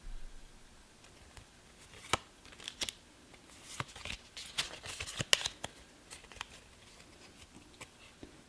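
Trading cards being handled and slid against one another: a scattered run of soft clicks and flicks of card stock, busiest in the middle.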